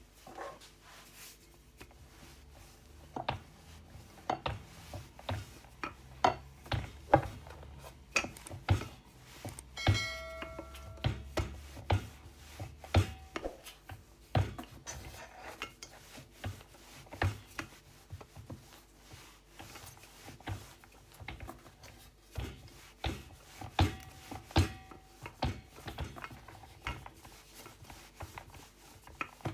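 Wooden rolling pin rolling out bread dough on a floured wooden board: irregular knocks and rubbing as the pin and hands work the dough against the board. A short ringing tone sounds about ten seconds in.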